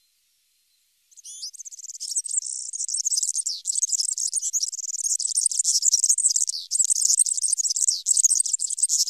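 European serin singing: a rapid, high-pitched twittering song that starts about a second in and runs on with short breaks.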